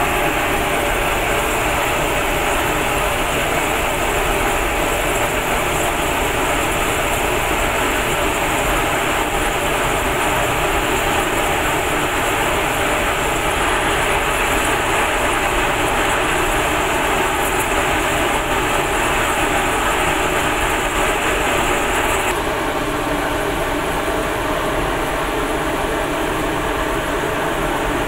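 Cremation furnace's burner and fan running with a steady, loud rushing noise and a faint steady hum. About twenty seconds in, the hiss gets a little softer.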